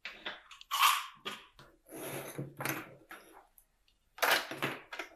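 Fabric and plastic clips being handled and placed at a sewing machine: a sharp rustle about a second in, a longer rustling slide in the middle, and another sharp knock-and-rustle near the end. The machine is not stitching.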